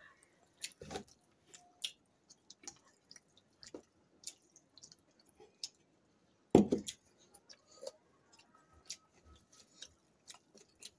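Two people eating rice and chicken by hand at close range: chewing and small mouth clicks scattered throughout, with one louder dull thump about six and a half seconds in.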